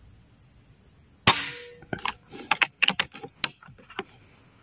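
A regulated PCP air rifle fires once, a sharp crack with a short fading tail. About half a second later a string of quick clicks and clacks follows for about two seconds.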